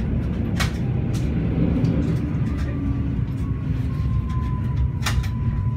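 Steady low rumble of a regional passenger train's wheels and running gear, heard from inside the carriage as it runs along a station platform. There are two sharp clicks, one just after the start and one near the end, and a faint thin whine comes in about halfway through.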